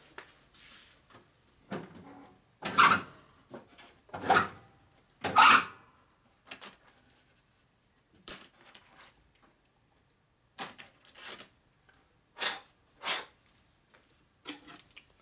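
Steel valve springs and small metal parts clinking and clattering as they are picked up and set down on a workbench: about a dozen short, separate clinks, the loudest in the first half.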